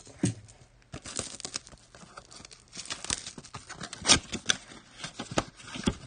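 Crinkling and tearing of trading-card packaging as packs are opened by hand, with irregular crackles and ticks, loudest about four seconds in.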